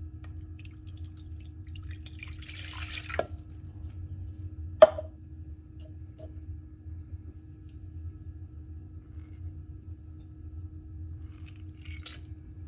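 Kitchen preparation sounds: a short pour of water lasting about a second, then a single sharp clink, followed by a few lighter clicks and a brief rustle near the end, over a steady low hum.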